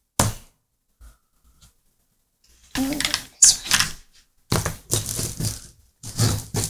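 Plastic toy noodles from a Yeti in My Spaghetti game clattering and scraping as they are pulled out by hand and gathered into a pile: one short rattle just after the start, then a run of repeated bursts from about three seconds in.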